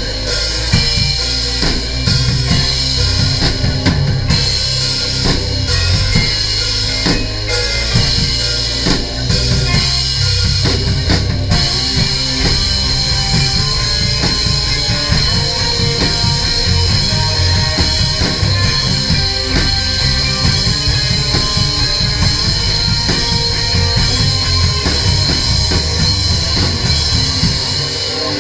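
A crust punk band playing live and loud: a drum kit pounding with bass drum and snare under guitar and bass, dense throughout.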